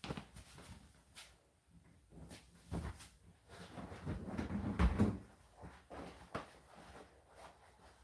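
Scattered clicks, rustles and knocks of things being handled, building to a louder cluster with one heavy thump about five seconds in.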